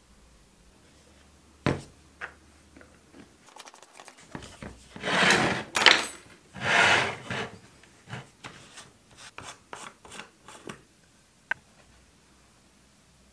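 Plastic screw cap being twisted off a bottle of epoxy resin: two rasping scrapes of the threads in the middle, followed by scattered light clicks and a sharp tick near the end. A single knock comes before them.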